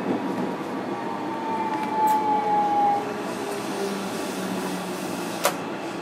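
JR Kyushu 305 series electric train standing at a platform, its equipment humming steadily. A whine slides slowly down in pitch over the first three seconds, and there is a sharp click about five and a half seconds in.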